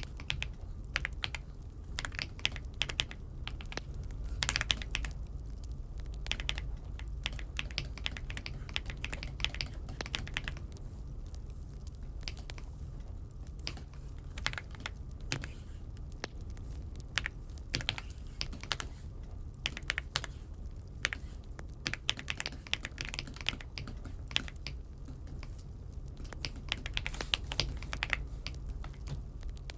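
Typing on an Aula F75 mechanical keyboard: quick runs of key clicks in uneven bursts with short pauses between them, over a steady low hum.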